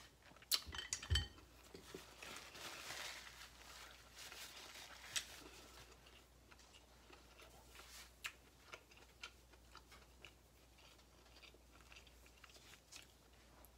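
A person quietly chewing a mouthful of lo mein noodles, with a few sharp clicks in the first second or so and small scattered ticks after.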